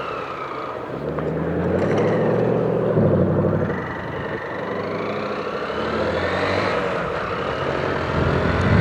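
Chevrolet Camaro's engine rumbling loudly and revving as it accelerates, its pitch rising and falling a few times, over the running of a small 150 cc motorcycle engine.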